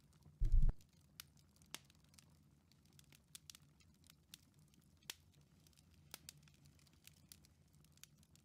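Fireplace crackling: sparse, irregular sharp pops, over a faint steady low hum. One short, loud low thump comes about half a second in.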